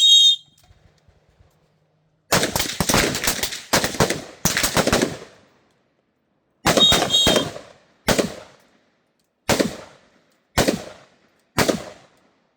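A shot timer's short electronic start beep, then a line of rifles firing on command, each shooter firing a pair of rounds. Overlapping shots come in a ragged volley about two seconds in and another cluster near seven seconds, then single stragglers trail off near the end, each with a short echo.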